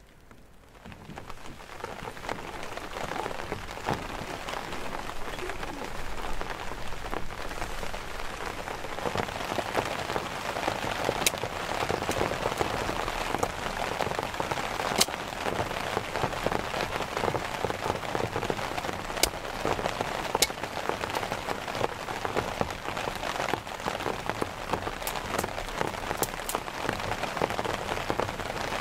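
Steady rain falling on a surface, with a few sharper single drop ticks standing out. It fades in over the first couple of seconds, then holds steady.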